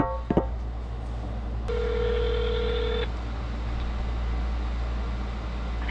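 Telephone ringback tone heard through a phone's speaker: a single steady ring of just over a second, about a second and a half in, while the call to the next shop connects.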